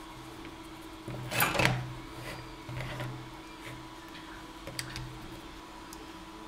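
Hands handling a white lamp cable and plastic lamp-socket parts: a short rubbing scrape about a second and a half in, the loudest moment, then a few light clicks and taps, over a faint steady hum.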